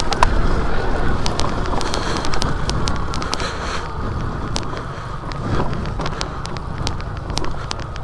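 Motorcycle riding along an offroad forest trail: a steady low engine and wind rumble buffeting the microphone, with many sharp clicks and ticks scattered throughout.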